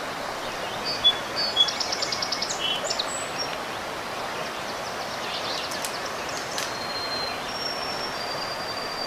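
Birds calling over a steady rushing background noise: a quick chattering run of high notes about two seconds in, a few scattered chirps, then long, high whistled notes held near the end.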